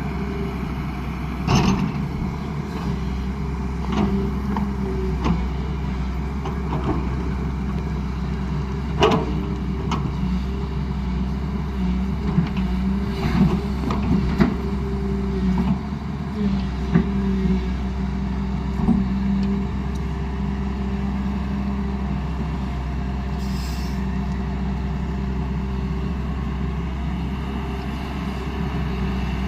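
Hyundai R210 Smart Plus excavator's diesel engine running steadily, with scattered sharp knocks and clanks as the machine works.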